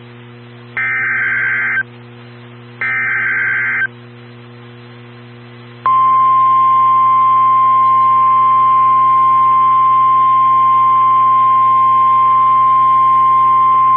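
Emergency Alert System SAME header: two loud bursts of warbling digital data tones, each about a second long. About two seconds later comes the National Weather Service's 1050 Hz warning alarm, one long steady tone starting about six seconds in, the signal that a tornado warning follows.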